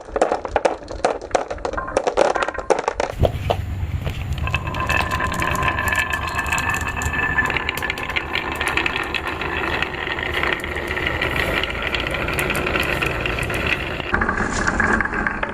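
Many small balls running down a wooden marble run. For about three seconds they make a rapid run of clacks and clicks against wooden track pieces, then turn into a steady rolling rumble with a faint ringing tone as they roll along a track for most of the rest. The sound changes again near the end.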